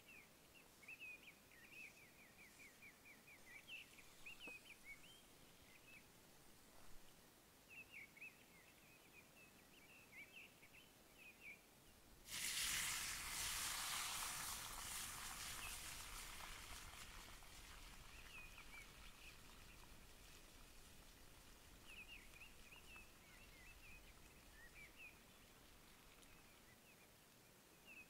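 Small birds chirping faintly. About twelve seconds in, raw potato sticks go into a pan of hot oil over a wood fire, setting off a sudden loud sizzle that slowly dies down to a steady frying hiss. The birds' chirps come through again near the end.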